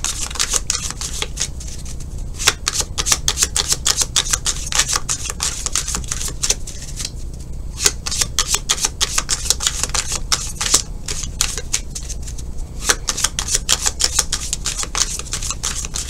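Tarot cards being shuffled by hand: a rapid, irregular run of card clicks and flicks with a few short lulls.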